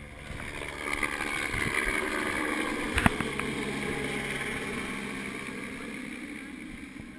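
Helicopter flying past low overhead. Its rotor and turbine grow louder about half a second in, then slowly fade, with the pitch falling as it passes. A single sharp knock comes about three seconds in.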